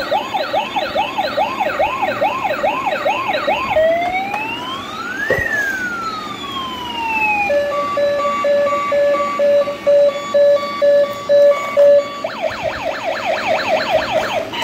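Toy police car's electronic siren sound effect cycling through patterns: rapid falling yelps about three a second, then one slow wail rising and falling, then a steady beeping pulse about twice a second, then rapid yelps again near the end.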